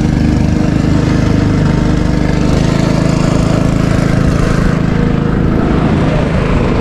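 Small boat motor running steadily, its engine note shifting about two and a half seconds in.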